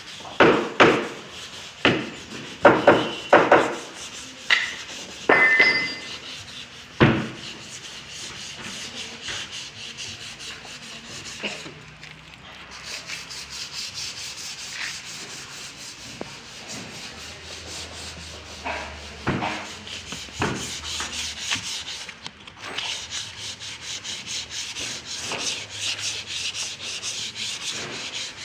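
Several sharp knocks on wood in the first seven seconds, then steady, rapid back-and-forth rubbing strokes of sanding on wood.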